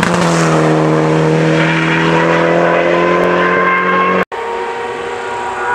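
A race car engine at high revs holds a steady note for about four seconds, then cuts off abruptly at an edit. A second racing engine follows at a slightly higher, steady note.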